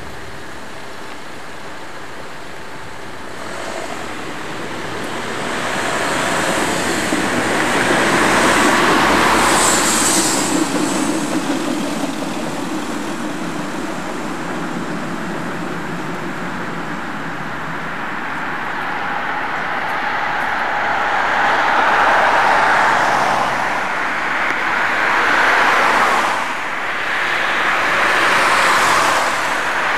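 City street traffic: a steady hum with several vehicles passing close by, swelling and fading, the loudest passes about a third of the way in and again in the last few seconds.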